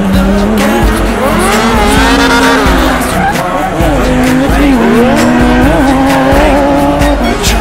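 Car tyres squealing, with wavering pitch, and an engine running during a burnout, over background music with a steady beat.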